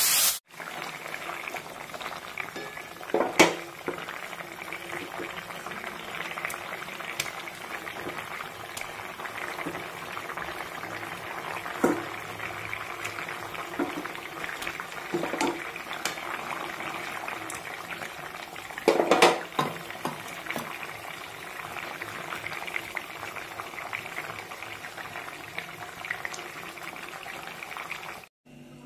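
Katla fish curry gravy boiling in a wok, a steady bubbling with a few louder sharp sounds, the strongest about three seconds and nineteen seconds in.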